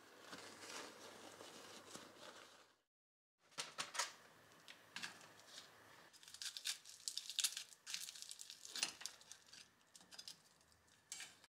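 A paper filter bag rustling as yuzu peels are pushed into it. After a short break, dried kombu (kelp) crackles and snaps in a long run of sharp, brittle cracks as it is broken into pieces by hand over a pot.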